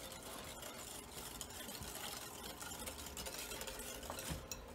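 Wire whisk stirring melted chocolate into a beaten egg and sugar mixture in a glass bowl: faint soft swishing with light scattered clicks of the whisk against the bowl.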